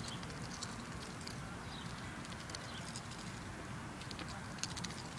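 A duck pecking and nibbling at goldfish crackers in the grass: irregular faint clicks of the bill, over a steady low outdoor rumble.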